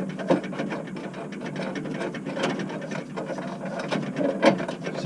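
Ratchet spanner clicking rapidly and steadily as a nut is run onto a bus fuel tank's mounting.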